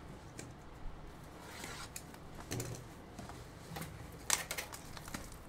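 Plastic shrink wrap being worked off a trading-card box: faint rustling with a few sharp crinkles, the sharpest about four seconds in.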